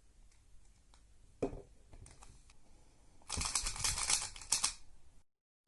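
A YuXin Little Magic 3x3 speed cube, lubricated with Lubical Silk, being turned: a single click, then about a second and a half of fast turning with rapid plastic clicking of the layers.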